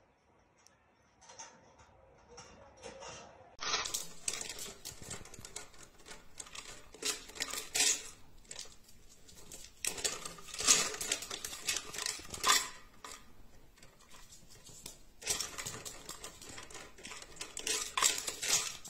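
Dry treats rattling and clattering inside a hanging plastic drink bottle as a small dog knocks and spins it to get them out. The rattling starts about four seconds in and comes in repeated bursts of sharp clicks.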